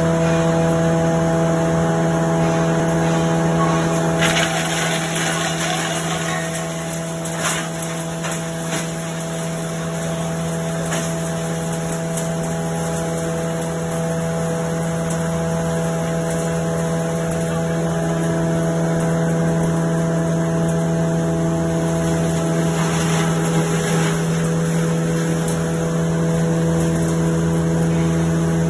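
Electric sawdust machine running steadily, with a strong, even hum from its motor and belt conveyor. Louder spells of rough crushing noise come about four to seven seconds in and again near the end, as the material fed along the belt is chewed up.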